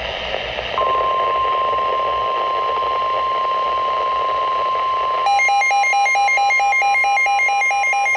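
NOAA Weather Radio alert coming through a receiver: static hiss, then about a second in the steady 1050 Hz warning alarm tone starts. About five seconds in, a rapid electronic beeping joins it. The tone signals that a warning is about to be read, here a severe thunderstorm warning.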